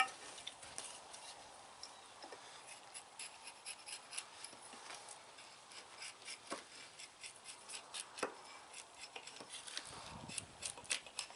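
Hatchet blade carving a half-seasoned cherry stick, the hand choked up on the head: light, frequent scraping and crisp ticks as shavings are pared off, with a few sharper knocks of the blade biting into the wood.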